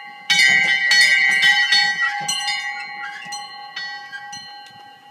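A small bell in a wooden belfry, rung by pulling its rope. The clapper strikes it quickly and unevenly, loudest about a third of a second in, then the strikes thin out and the ringing fades.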